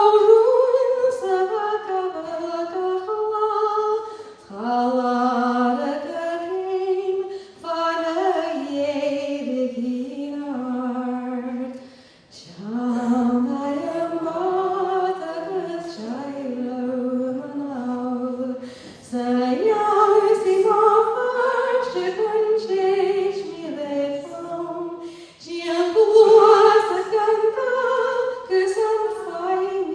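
A woman singing a Scottish Gaelic song unaccompanied. She sings in phrases of a few seconds, with short pauses for breath between them.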